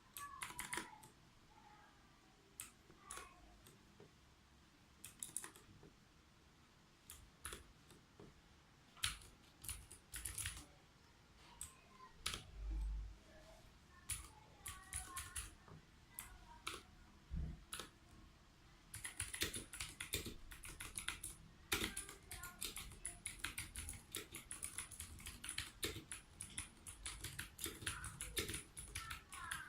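Typing on a Ducky One mechanical keyboard with clicky Cherry MX Blue switches. Keystrokes are scattered and slow at first, then become fast, continuous typing about two-thirds of the way through.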